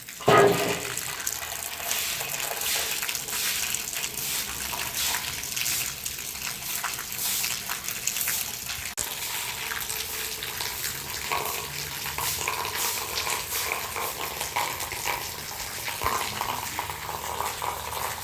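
Running water splashing steadily, like a tap running into a sink during washing, with a brief loud clatter right at the start.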